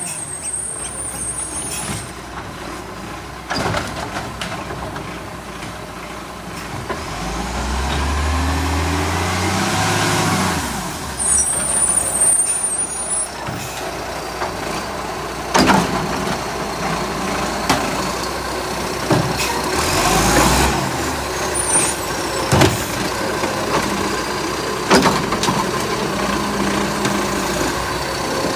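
Garbage truck's diesel engine running and revving up and back down about eight to ten seconds in, with a short high hiss just after and several sharp knocks later on. The truck has a small exhaust leak.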